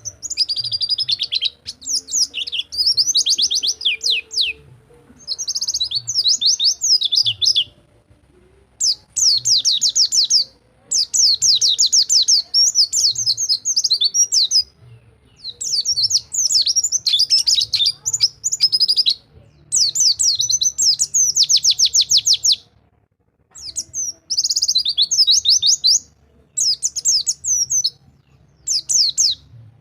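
White-eye (pleci) singing in fast trilled 'rol tembak' phrases: quick runs of high, falling notes, each phrase a second or two long, repeated after short pauses.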